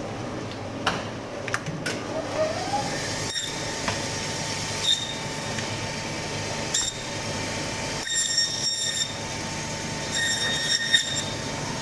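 Butcher's meat bandsaw running steadily while goat is cut into pieces, with scattered knocks of meat and bone on the table. Twice near the end a high-pitched squeal rises as the blade cuts through bone.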